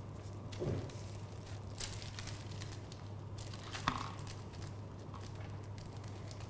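Quiet room tone with a steady low hum, broken by faint rustles and a light tap about four seconds in from kittens playing with toys on a blanket and among cardboard boxes.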